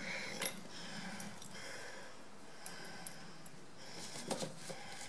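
Light clicks and clinks of small metal parts being handled: a bolt and nut turned by hand, then pliers picked up. There is a sharper clack about half a second in and a short cluster of clicks near the end.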